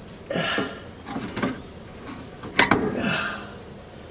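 Pliers working a small retaining clip out of a riding mower's deck linkage: scraping and rubbing of metal, with a sharp double click a little past halfway.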